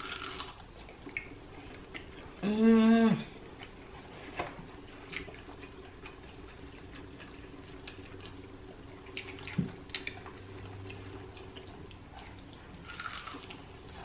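A woman hums a drawn-out 'mmm' of pleasure about two and a half seconds in. Then she chews crispy fried chicken wing with soft, scattered mouth clicks and smacks.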